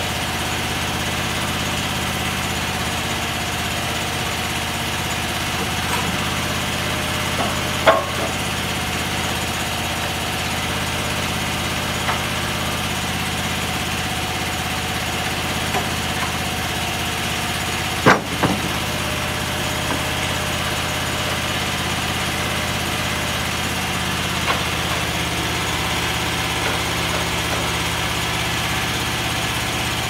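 Small gasoline engine on a homemade band sawmill idling steadily. A few sharp knocks sound over it, the loudest about 18 seconds in, as a spruce log is rolled on the mill bed with a cant hook.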